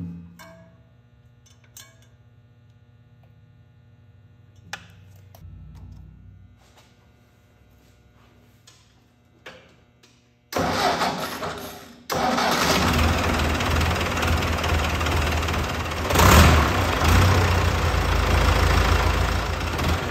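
Ford 861 Powermaster tractor's four-cylinder diesel engine starting up: it is cranked over about halfway through, catches within a couple of seconds and then runs steadily, with a brief rise in revs a few seconds later.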